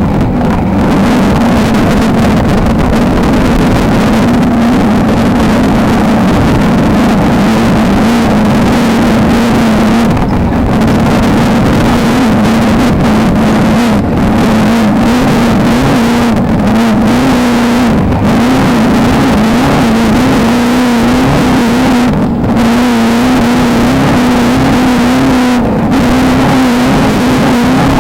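Beetle desert race car's engine running hard at high revs under a steady rush of noise. Its note wavers up and down and dips briefly about six times, as the throttle is lifted for bumps or shifts.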